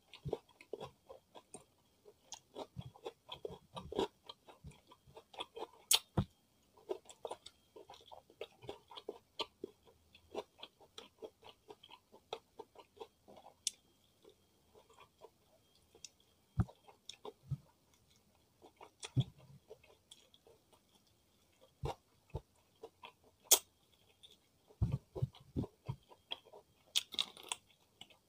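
A person chewing fried chicken: many short, irregular wet mouth clicks, with a few sharper crunches as meat is bitten from the drumstick.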